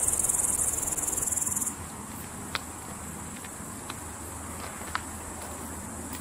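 Insects trilling: a loud, high-pitched, rapidly pulsing trill that stops about two seconds in. A faint steady high tone follows, with a few soft clicks.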